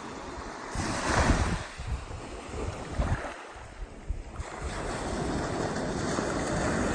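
Sea surf washing onto a sandy beach just after a typhoon has passed, with wind buffeting the microphone. The rush of water swells about a second in and again near three seconds, drops briefly around four seconds, then builds to a steady roar.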